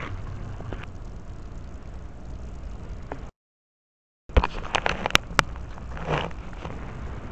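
Steady low outdoor rumble on a body-worn camera microphone, with scattered light clicks and knocks of handling. A little over three seconds in, the sound cuts out completely for about a second at an edit, then returns with a quick run of sharp clicks and taps and a short rustle.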